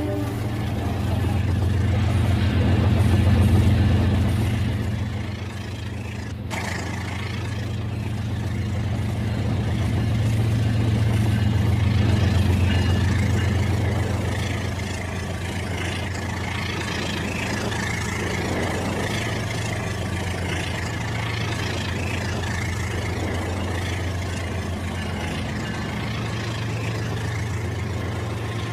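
Battery-powered Rail King toy train running on its track: a steady low motor-and-gear hum that gets louder twice and then fades back.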